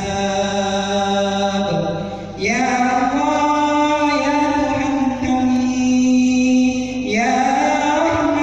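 A man chanting a prayer of supplication as a melodic recitation, holding long sung notes of a few seconds each. A new phrase starts higher about two and a half seconds in and again near seven seconds.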